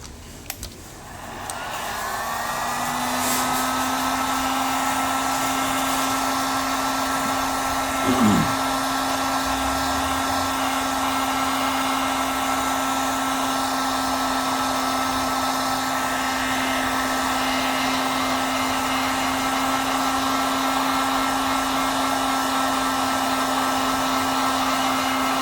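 Hot-air blower switched on about a second in, its motor spinning up over a couple of seconds to a steady hum with a higher whine and a rush of air, heating the phone's glued-on screen glass to soften the adhesive.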